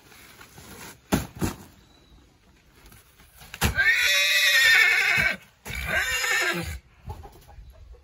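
A pack horse neighs twice in a row, a long wavering whinny and then a shorter one. Two thumps come just before, about a second in.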